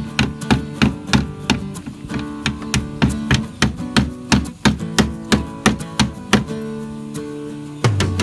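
Background music: strummed acoustic guitar in a steady rhythm, with a deeper bass part coming in near the end.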